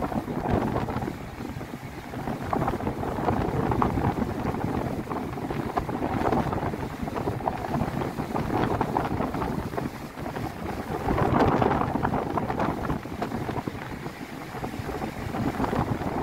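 Wind buffeting the microphone over the rush of ocean surf breaking on the beach, swelling and easing in gusts, loudest about two-thirds of the way through.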